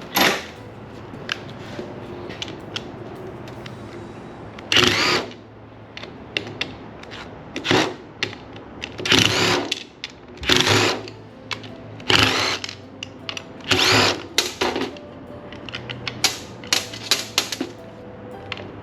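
Power drill running in repeated short bursts of about half a second to a second, its pitch rising and falling with each pull of the trigger, as it works the cover off a Rule bilge pump. Near the end come a quick run of short clicks and knocks.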